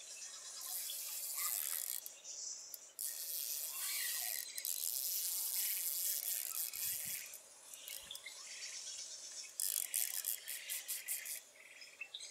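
Fishing reel whirring in several spurts of one to three seconds, starting and stopping abruptly, while a hooked fish pulls on the bent rod. Near the end the whirring turns into a rapid ticking.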